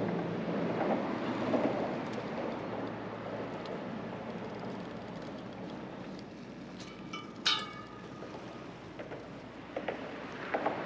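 Steady rushing outdoor background noise over open water, with one sharp metallic clink that rings briefly about seven and a half seconds in and a few small clicks near the end.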